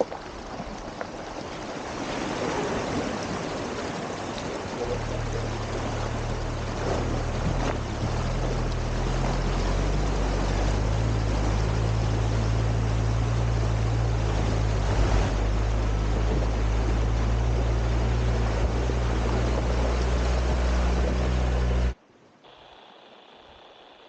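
A four-wheel-drive vehicle on the move: a steady low engine drone over a loud rushing hiss of wind and road noise. The drone comes in about five seconds in, and both cut off abruptly near the end, giving way to a much quieter, faint background.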